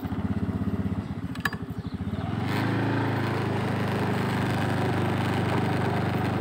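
Motorcycle engine running unevenly at low revs, then picking up about two and a half seconds in and running steadily under way. A single click comes about a second and a half in.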